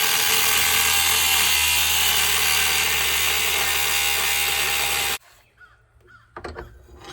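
Power tool working metal, a loud steady run with a low hum that cuts off abruptly about five seconds in. Faint short chirps and a few clicks follow.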